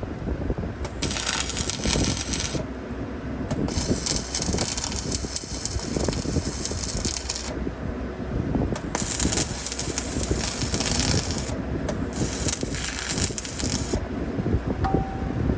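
Electric welding arc crackling in four bursts of about one and a half to four seconds each, starting and stopping sharply, over a steady low rumble.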